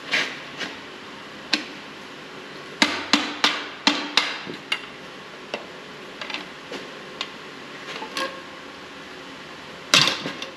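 Metal hand tools knocking and tapping on metal while the dipstick tube is pried out of the transmission pan: sharp separate strikes, a quick run of about eight around three to five seconds in, lighter scattered taps after, and one loud knock near the end.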